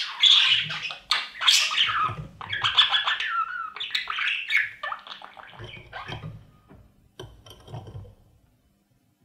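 Budgerigars calling inside a nest box: rapid chattering squawks and chirps, with low thumps from the birds moving about. The calls thin out and die away about eight seconds in.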